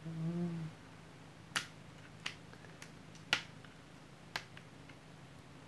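Sharp plastic clicks and snaps from a CD case being handled and opened, about five of them spread out, the loudest about a second and a half and three and a half seconds in. A short low hum of a voice comes at the very start.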